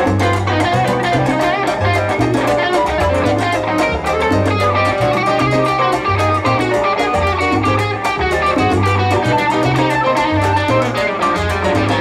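Afro-Cuban jazz ensemble playing live: an electric guitar carries the lead line over a moving upright bass line and busy conga drumming.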